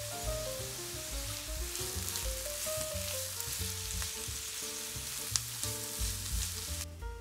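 Grated carrot and onion sizzling as they fry in oil in a nonstick pan, stirred with a silicone spatula. The sizzle cuts off suddenly near the end, with light background music underneath.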